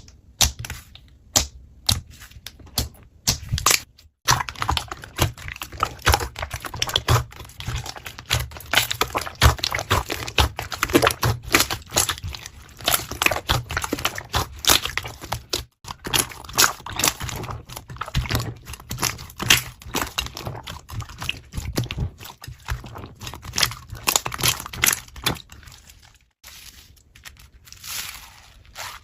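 Slime being squeezed, poked and stretched by hand, giving a dense run of small wet clicks, pops and crackles, broken by a few short silent gaps.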